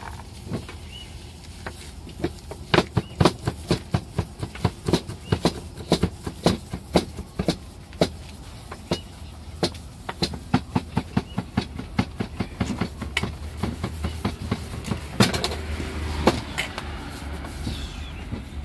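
A run of sharp knocks and clicks at an irregular two or three a second, over a low steady rumble.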